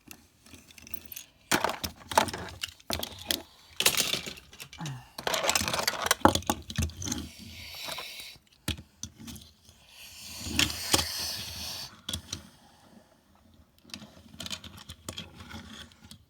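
Small hard toy cars being handled and knocked together, with irregular clicks, clatters and scrapes on a hard surface. They come in clusters, busiest in the first half and again a little past the middle.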